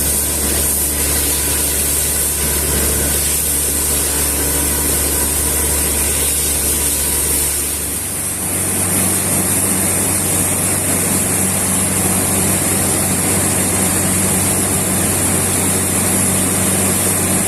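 Truck-mounted borewell drilling rig running, a loud steady mechanical drone with a hiss over it. About eight seconds in the sound shifts: the deep hum drops away and a rougher, fuller noise takes over.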